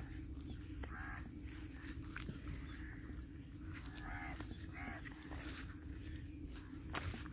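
Crows cawing, a few separate arched caws, over a steady low hum; a sharp click near the end.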